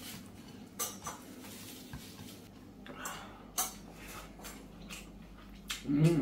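Spoons and cutlery clinking and scraping against plates and serving dishes, in scattered short clicks. A louder, brief low voice sound comes near the end.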